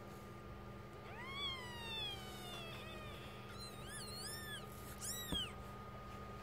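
Newborn kittens mewing: one long thin high call that falls in pitch about a second in, then a few short high squeaks around four seconds in and another near five seconds.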